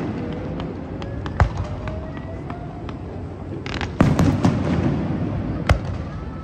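Fireworks: sharp bangs of shells bursting and scattered crackling over a steady low rumble. A dense burst of crackles comes about four seconds in, and a single sharp bang comes near the end.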